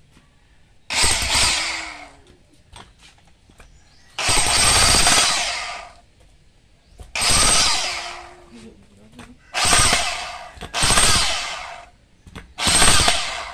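Corded electric jackhammer, its burnt stator and rotor freshly rewound, chiselling into a lump of concrete on a test run. It goes in six short bursts of one to two seconds each, every one starting and stopping abruptly.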